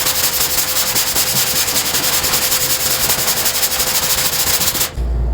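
Body filler being hand sanded with a sanding block in quick back-and-forth strokes, a continuous rasping scrape of abrasive paper on filler that cuts off about five seconds in.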